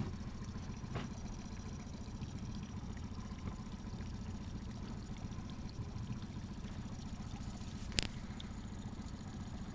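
Mercury four-stroke outboard kicker motor running steadily at low trolling speed, with one sharp click near the end.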